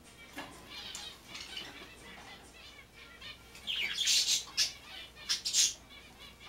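Can of Great Stuff expanding foam sealant hissing and sputtering out through its applicator straw in short spurts, the loudest two bursts about four and five and a half seconds in.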